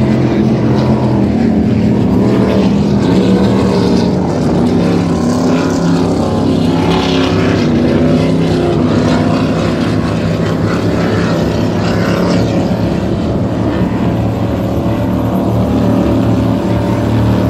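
Racing powerboat engines running at speed as the boats pass: a loud, continuous drone whose engine tones rise and fall as they go by.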